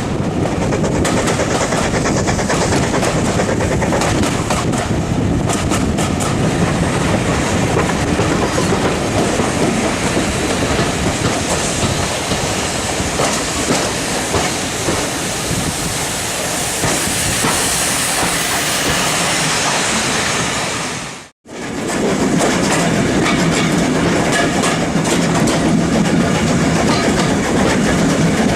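Steam-hauled passenger train carriage running along the line, heard from the carriage window: a steady rumble of wheels on rail with clickety-clack over the rail joints. The sound cuts out abruptly about 21 seconds in and comes straight back.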